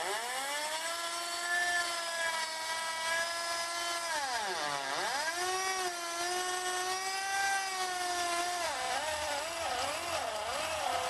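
Electric drill with a stepped drill bit cutting into aluminium sheet. The motor whines as it spins up, sags sharply in pitch under load about halfway through and recovers, then wavers up and down near the end as pressure changes. The drill's gearbox is noisy; the owner says it is dying.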